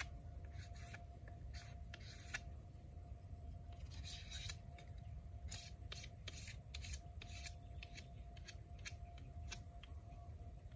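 Stainless steel knife whittling a skewer stick: short, irregular scraping strokes, mostly quick cuts with a few longer shaves among them.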